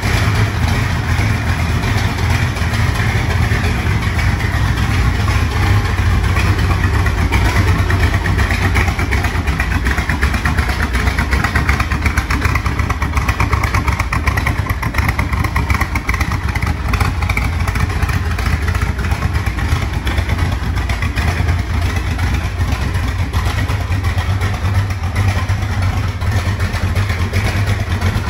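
C2 Corvette Sting Ray's V8 idling steadily, with a fast, even exhaust pulse.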